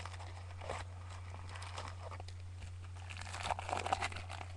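Trading cards and pack wrappers being handled: irregular rustling and crinkling, busiest near the end, over a steady low electrical hum.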